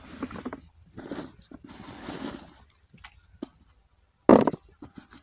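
Hand rummaging through a plastic tub of garlic cloves, their dry papery skins rustling and crunching in three bursts. A short, louder handling noise comes about four seconds in.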